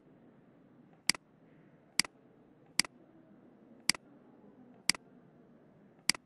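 Computer mouse button clicking six times, about once a second, each a sharp click with a fainter one just after. The clicks place pen-tool anchor points one by one while drawing a zigzag line.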